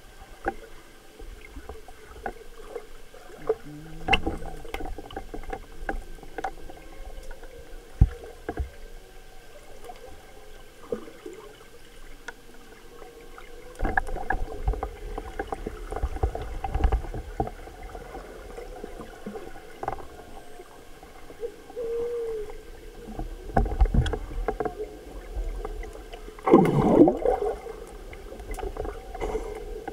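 Swimming pool heard from under the water: a steady hum with muffled water movement from swimmers, louder about halfway through and again near the end, and a few sharp knocks.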